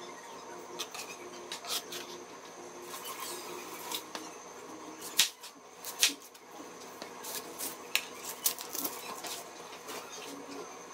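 Chef's knife tapping and scraping on a cutting board while garlic is cleared and an onion is trimmed, with two sharp knocks about five and six seconds in as the blade cuts through the onion onto the board.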